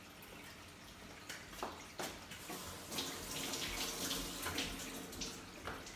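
Kitchen sink tap running for a couple of seconds, after a few light knocks.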